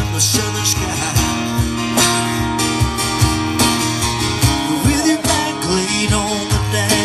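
Acoustic guitar strummed with a cajon keeping a steady beat, played live, with a voice singing along at times.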